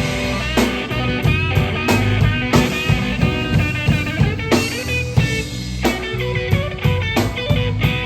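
Rock music with a blues-rock feel: an electric guitar lead playing wavering, bent notes over bass and a drum kit with regular hits.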